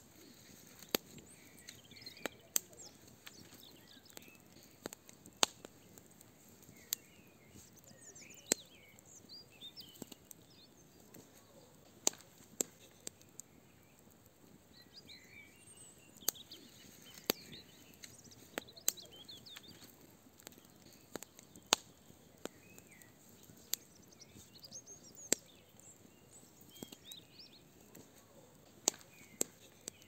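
Fire burning in a barbecue, crackling with sharp pops at irregular intervals, while birds chirp in the background.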